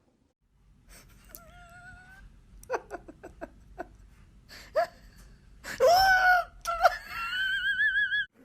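Puppy whimpering and whining: a string of short, high cries and yelps, the loudest about six seconds in, ending in a long wavering whine.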